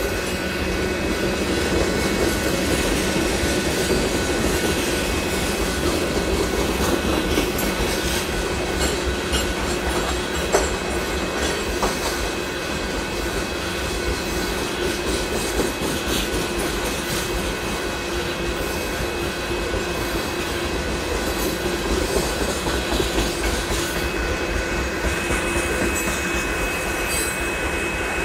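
Loaded rock cars of a freight train rolling past at steady speed: a continuous rumble of wheels on rail, with steady high-pitched tones above it.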